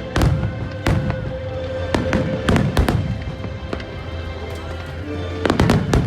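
Fireworks display: a string of sharp bangs every second or so, with a quick cluster of bangs near the end, over music playing.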